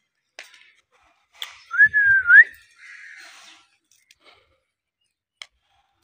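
Indian ringneck parrot giving one short wavering whistle that sweeps upward at the end, with a few soft clicks before and after it.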